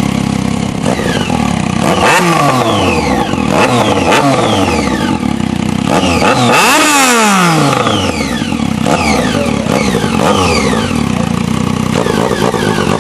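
Turbocharged Triumph Street Triple 675 motorcycle engine revved several times, each rev falling away with a whistle and hiss from its blow-off valve. The biggest rev comes about seven seconds in.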